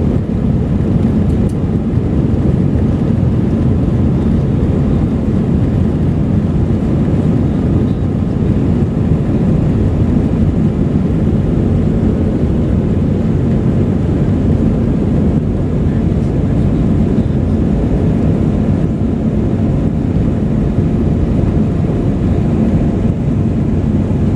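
Airbus A319 jet engines running at full takeoff power: a loud, steady low rumble that holds an even level throughout.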